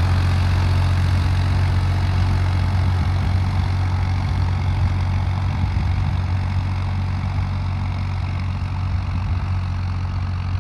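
Farmtrac 60 T20 PowerMaxx 55 HP tractor engine running steadily under load while pulling a 13-tine tiller through sandy soil. It has a strong low hum that grows slightly fainter as the tractor moves away.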